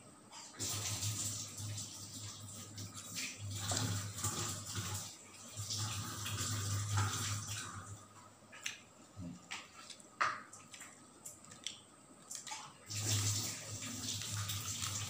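Close-miked wet chewing and mouth sounds of a person eating grilled fish and rice by hand, coming in bouts with sharp smacks and clicks in between and a quieter spell in the middle.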